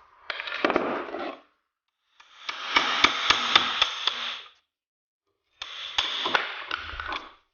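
Hammer blows on metal with a ringing tone, in three short runs; the middle run has about four strikes a second.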